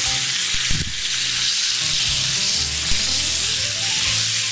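Bone-in beef steak sizzling steadily as it sears in a hot cast-iron grill pan.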